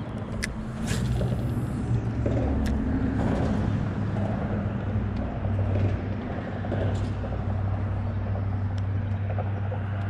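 A steady low motor hum that gets louder about a second in, with a few sharp clicks over it.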